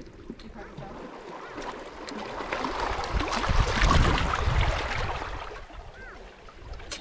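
Shallow seawater sloshing and splashing around rocks at the shoreline, building to its loudest about four seconds in and then easing off.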